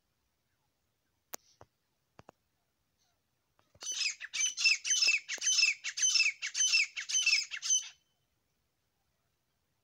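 Grey francolin calling: a rapid, loud run of repeated harsh, ringing notes, about two to three a second, lasting some four seconds from about four seconds in. A few faint clicks come before it.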